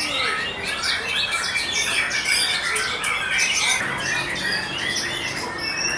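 White-rumped shama singing a fast, unbroken run of short, varied notes that sweep up and down in pitch.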